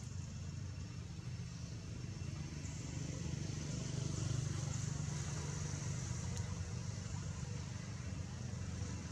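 Steady low rumble, like distant road traffic, growing a little louder around the middle, under a faint high hiss.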